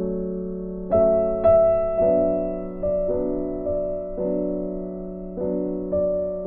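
Background piano music: soft notes and chords struck and left to fade, a new one about every half second to second, loudest about a second in.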